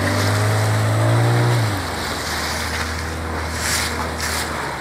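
Suzuki 9.9 two-stroke outboard motor running steadily as the inflatable boat pulls away; about two seconds in its note drops and it gets quieter. Two short bursts of wind noise near the end.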